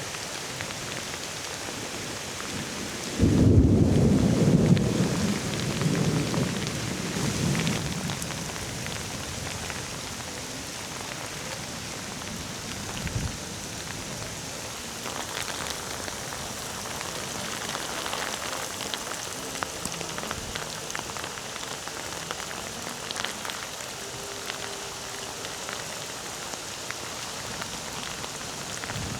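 Rain falling steadily throughout. Thunder breaks suddenly about three seconds in and rumbles away over the next few seconds.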